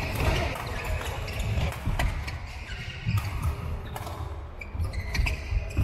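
Badminton rally: sharp racket strikes on the shuttlecock, several over the few seconds, with players' footsteps thudding on the wooden court and other courts' play in the background.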